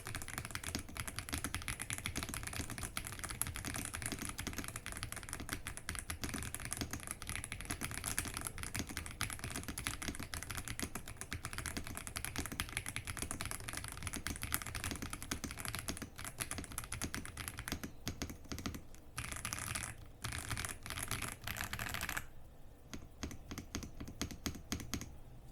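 Typing on a Xinmeng X98 Pro mechanical keyboard with linear White Jade switches and PBT doubleshot Cherry-profile keycaps. The keystrokes come fast and continuous, a soft sound with a slightly clacky edge, then slow to sparse keypresses in the last few seconds.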